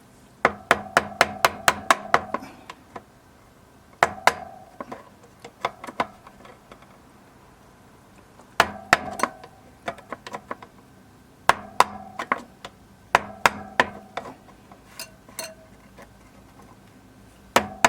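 A hammer tapping the rear brake caliper's pad retaining pin home, driving it through the pads. Several bursts of quick, sharp metallic taps, each with a brief ring, with short pauses between bursts.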